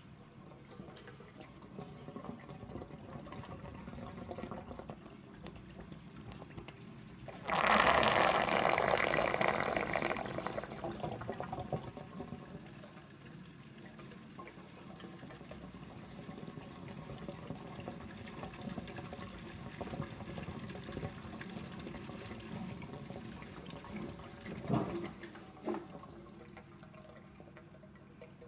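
Water draining through a Bean Animal aquarium overflow as it recovers from a power cut and is not yet running silent: a steady trickling and gurgling, with a loud flush-like rush about seven seconds in that eases off over a few seconds, and two short gurgles near the end.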